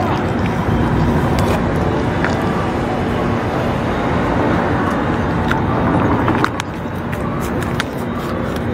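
Steady road-traffic noise with a faint engine hum, easing a little about six and a half seconds in, and small clicks of a cat chewing food from a metal dish.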